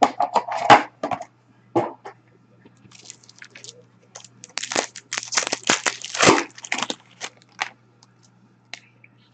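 Hockey card packs being opened by hand: wrappers crinkling and tearing in a run of sharp crackles, densest in the middle, over a faint steady low hum.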